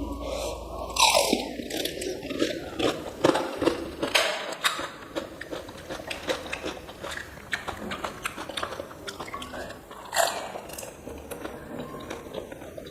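Close-up biting and chewing of crisp fried puris, with many short crackles of the shells crunching in the mouth. The loudest crunches come about a second in and again about ten seconds in.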